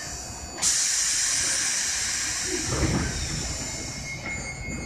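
Compressed air hissing out of an Iyotetsu 3000 series electric train's air system as it readies to depart. The hiss starts suddenly under a second in and fades slowly. A low thump follows about three seconds in, and a steady high tone starts near the end.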